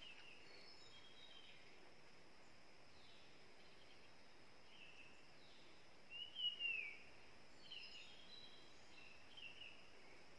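Forest birds calling in a quiet wood: one louder call that curves downward in pitch about six seconds in, with fainter short chirps scattered around it, over a faint steady high hum.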